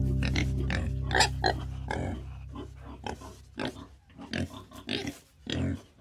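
A pig grunting: a string of short, separate grunts at irregular intervals, a slightly longer one near the end. Guitar music fades out under the first two seconds.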